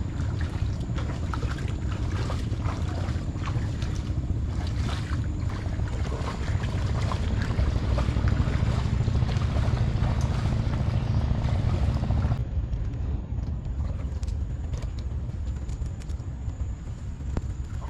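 Steady low rumble of wind buffeting the microphone, with scattered light ticks above it; about twelve seconds in the higher part of the sound drops away suddenly.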